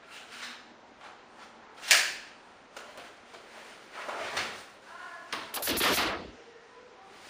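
Close handling sounds: a sharp click about two seconds in, then softer rustles and several short bursts of noise, the longest near the end.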